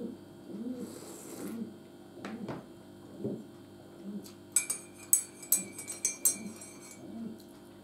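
A metal teaspoon stirring coffee in a ceramic mug: a quick run of ringing clinks against the mug's side for about two seconds past the middle. Before it come a couple of single knocks. A soft low sound repeats about once a second throughout.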